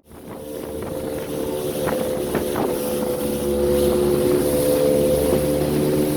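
Motorboat engine running steadily, coming in over the first second or two, with wind buffeting the microphone.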